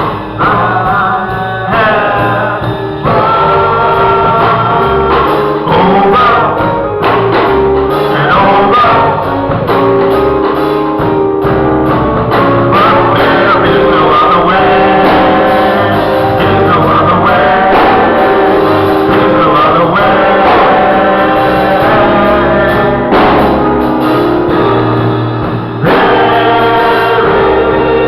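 Gospel music: voices singing held, sliding notes over a steady instrumental backing with bass.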